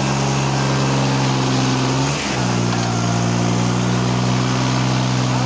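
Modified Swaraj 855 tractor's three-cylinder diesel engine running hard and steadily, blowing black smoke under load. Its pitch dips briefly about two seconds in, then it picks up again.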